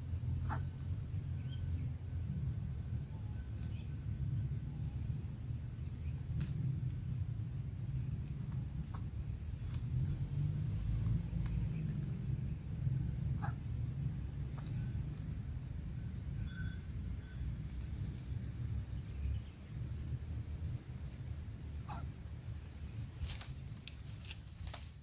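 Insects droning steadily at a high pitch, over a low steady rumble, with scattered faint clicks and rustles.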